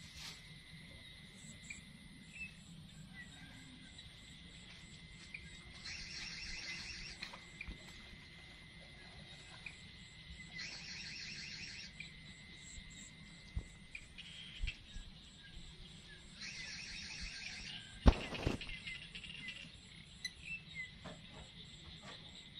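Insects trilling steadily in the background. Three times a louder burst of rapid chirping lasts a second or so, and a single sharp knock comes near the end.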